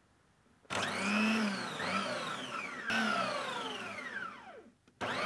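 Kitchen blender motor switched on in short runs, three times, each whine sinking in pitch as the motor winds down; foam squishy toys jammed in the jar keep it from turning them properly.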